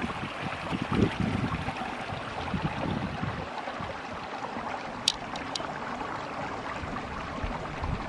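Small creek flowing with a steady water rush, with wind buffeting the microphone now and then. Two brief high-pitched sounds about five seconds in.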